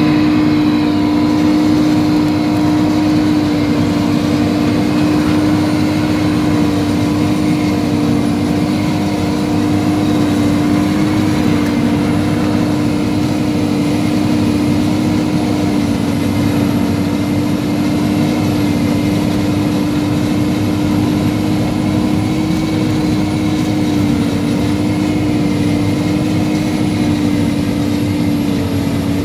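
Versatile RSM 1403 self-propelled forage harvester chopping standing maize under load: its engine and chopping gear run as a loud, steady drone with a strong hum and a faint high whine above it.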